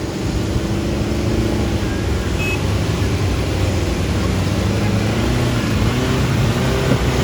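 Off-road 4x4 vehicle engines revving under load, the pitch rising and falling as the vehicles work through a hard section of the course.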